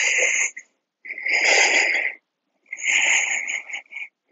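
Deep, audible breathing of a man holding a yoga pose: three long breaths in and out, each about a second long, with short pauses between them.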